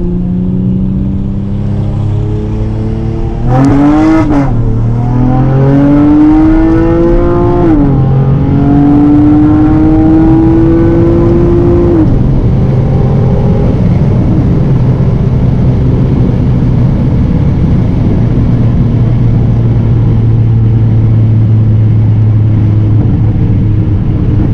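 Honda Accord V6 with catless downpipes (precat deletes) accelerating hard through the gears. The engine note rises, drops at upshifts about 4 and 8 seconds in, climbs again, then settles about halfway through into a steady low cruising drone.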